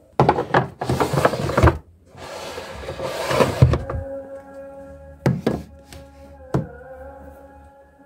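Plastic storage baskets handled and slid on a wardrobe shelf: two stretches of scraping and rustling, then three sharp knocks as they are set down. Soft background music with held notes plays underneath.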